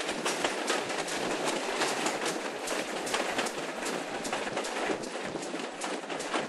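Train running along the line, heard from just behind the locomotive's tender: a steady rush of running noise with many irregular sharp clicks and rattles from the wheels on the track.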